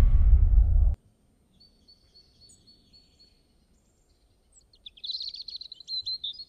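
A loud low rumble cuts off about a second in. Then comes songbird chirping, faint at first, turning into louder quick trills after about five seconds.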